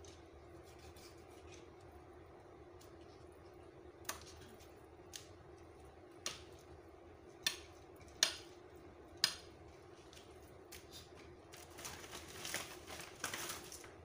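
Kitchen knife knocking against a plastic cutting board while raw chicken breast is sliced thin. There are about six sharp knocks roughly a second apart, starting about four seconds in, then softer handling noises of the meat near the end, over a faint steady hum.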